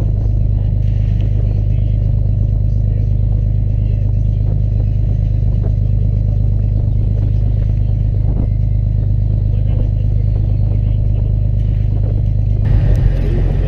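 A fishing boat's engine running steadily under way: a deep, even drone. Near the end the sound changes abruptly.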